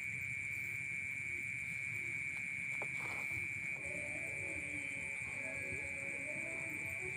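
A steady high-pitched drone, with faint music coming in about four seconds in.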